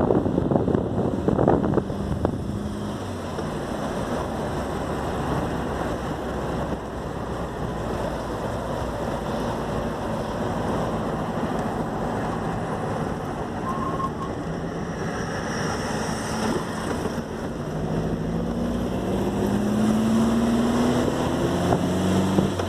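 Puma GTS's air-cooled Volkswagen flat-four boxer engine running under way, with wind noise. Near the end the engine pitch rises steadily as it accelerates.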